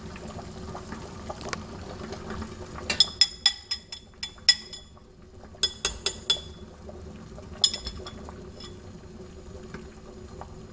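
A spoon tapping the edge of the bowl of steamed egg to check whether the custard has set: a quick run of ringing clinks about three seconds in, a few more near six seconds and one near eight. Under it, water simmers steadily in the steaming pot.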